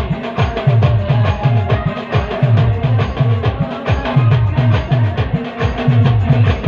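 Instrumental band music: a keyboard melody over a fast, even drum beat, with deep bass drum strikes that each drop in pitch.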